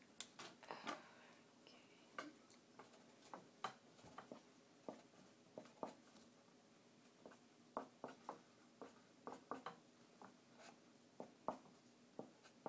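Marker pen scratching and tapping on paper in short, irregular strokes while drawing, faint.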